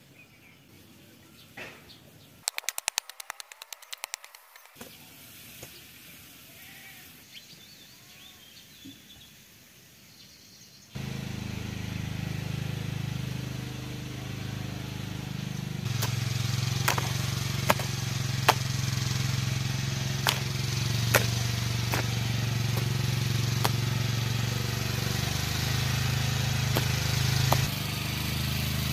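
A small engine running steadily, cutting in suddenly about a third of the way through and staying even, with scattered sharp clicks over it. Before it, only quiet outdoor sound and a brief burst of rapid clicking.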